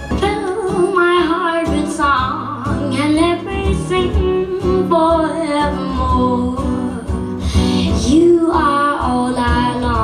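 A young girl singing a slow song with acoustic guitar accompaniment. It is played back over a Marantz SR8012 AV receiver's home-theatre speakers and picked up by a microphone in the room.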